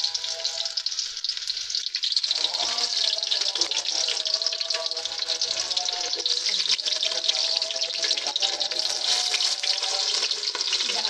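Sliced onions frying in hot oil in an aluminium pot: a steady, dense crackling sizzle. Under it, fainter, an azan (Islamic call to prayer) is being sung.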